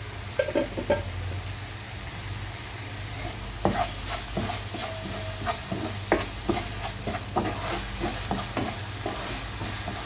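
A spoon stirring a thick tomato masala in a cooking pan, with irregular taps and scrapes against the pan over a steady low sizzle.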